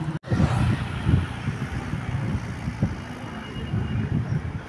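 Low rumble of road-vehicle engines and traffic, with a momentary dropout just after the start.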